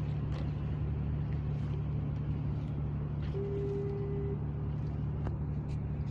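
An engine running steadily with a low drone. About three and a half seconds in, a short steady high tone sounds for about a second.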